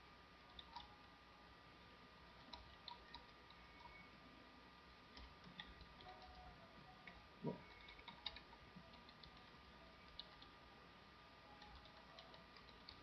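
Near silence with faint, scattered computer keyboard clicks from typing, over a faint steady high whine. One soft low thump about halfway through is the loudest sound.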